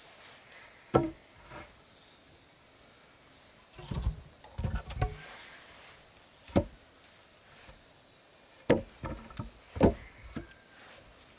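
Irregular wooden knocks and clunks, as of pieces of wood being handled and struck together: a single knock, a cluster of clunks, then another knock and a quick run of them near the end.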